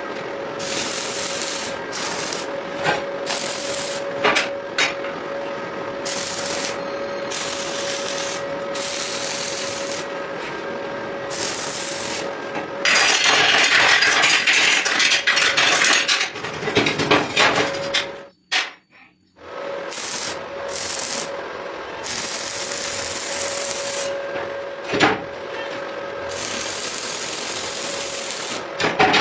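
Metalworking noise in a workshop: a rasping, hissing noise that stops and restarts many times over a steady machine hum. About halfway through it grows louder for several seconds, then cuts out briefly.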